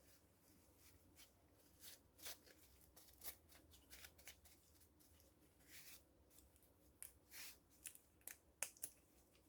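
Near silence with faint, scattered light clicks and short scrapes at irregular intervals: small handling noises.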